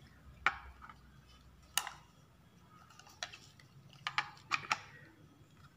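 Clear plastic toy globe and its plastic stand clicking and knocking against each other as they are handled and fitted together: a handful of light, scattered clicks, several coming close together near the end.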